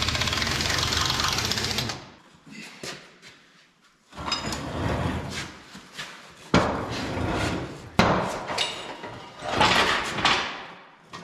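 Pneumatic impact wrench hammering a bolt tight in a fast rattle that stops about two seconds in. After that come clanks and scrapes of metal parts being handled, with two sharp knocks.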